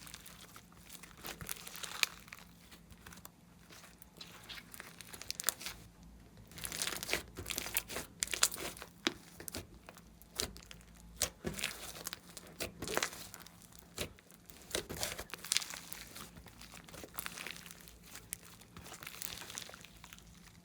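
Glossy slime being squeezed and stretched by hand, giving off many irregular sharp crackles and pops as trapped air escapes, busiest in the middle stretch.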